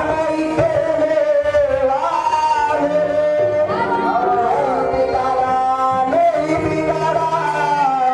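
Qawwali song: male voices singing through microphones over instrumental accompaniment with a steady drum beat.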